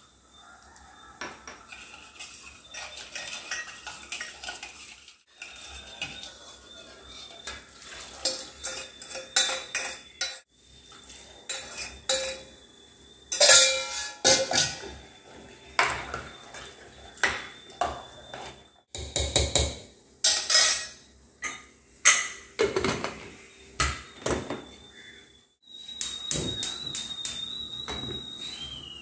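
Stainless-steel cookware clinking and clattering: a spoon stirring and knocking in a steel pan, pots and lids being handled, and a pressure cooker set onto the gas hob near the end.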